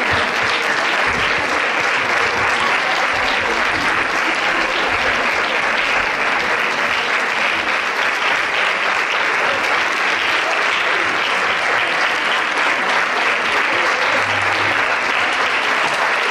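Audience applauding steadily, a dense, even sound of many hands clapping.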